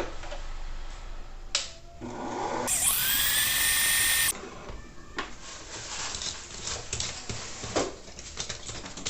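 Electric kitchen mixer beating cake batter: the motor starts about two seconds in, rises to a loud steady whine that cuts off suddenly after about a second and a half, then gives way to quieter rattling and clicking of the beaters in the bowl.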